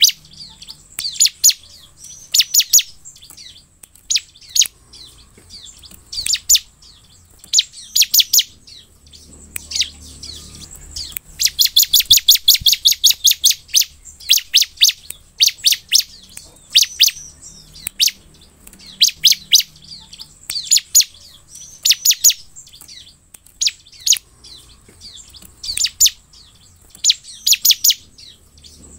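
Bar-winged prinia (ciblek) calling: sharp, high chirps in quick bursts of a few notes at a time, with one longer rapid trill near the middle.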